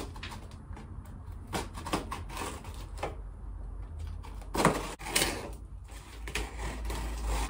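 Large cardboard mailing package being opened by hand: irregular scraping, rustling and clicking of cardboard and packing tape, with a louder rasping scrape a little after halfway.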